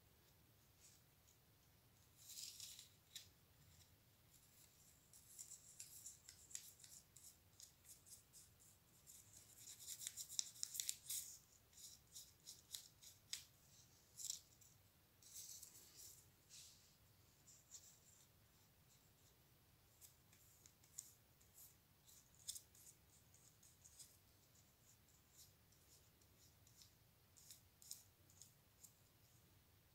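Faint, crisp rustling and clicking of small paper and cardboard parts being handled, in scattered short bursts, busiest about a third of the way in.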